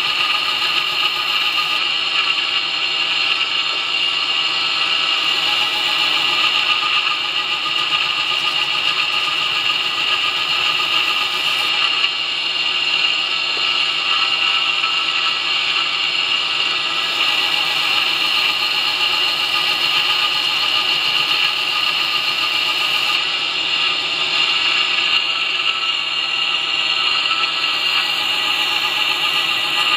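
A 2x72 belt grinder running a coarse surface conditioning (Scotch-Brite) belt, with a steel knife blade held against the platen. It makes a steady high whine.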